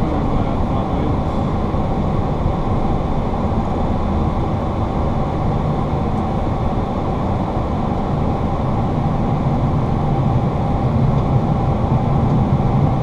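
Steady rumble inside a Boeing 737-800 cockpit as the jet rolls out after landing and turns off the runway: its CFM56 engines and its wheels rolling over the pavement, with a few faint steady tones above the rumble.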